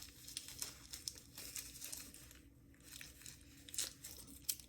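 Faint crinkling and rustling of packing material as a wrapped item is unpacked from a parcel, with a few light clicks near the end.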